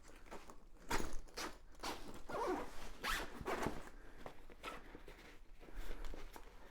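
Zipper on a fabric duffel-style carry bag being pulled open and shut in several rasping strokes.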